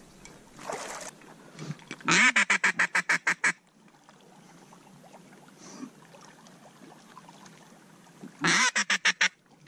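Duck call blown by a hunter in a run of quacks: one longer note followed by about ten quick quacks, then a shorter run near the end. The calling is drawing an incoming duck into the decoys.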